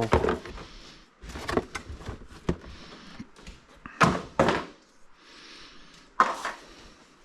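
Handling and unpacking noises: the plastic filter housing and its parts being taken out of the packaging and set down, giving a few separate knocks and clatters with rustling between them.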